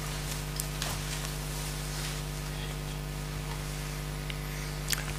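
Steady hum and hiss of an open microphone and sound system, with a few faint clicks and rustles at the lectern and one sharper click near the end.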